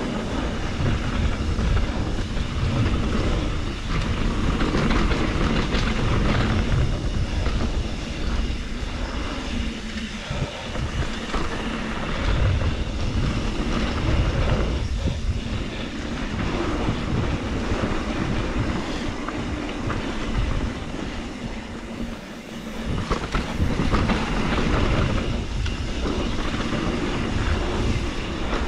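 Wind rushing over the GoPro microphone and knobby tyres rolling on a dirt trail as a 2021 Trek Slash 7 mountain bike descends at speed, with the bike rattling over the bumps. The rush is continuous, swelling and dipping with speed and terrain.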